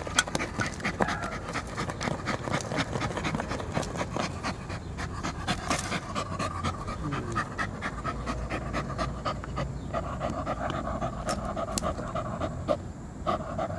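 Poodle-type dog digging in loose soil with its front paws: quick, repeated scratching and scraping of claws in dirt, mixed with steady panting from a tired dog.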